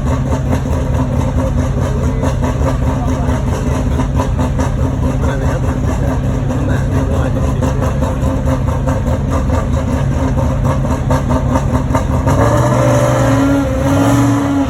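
Loud racing-car engines running with a fast, rough burble. About twelve seconds in, a clearer engine note comes in and rises slightly near the end, as one car revs or pulls away.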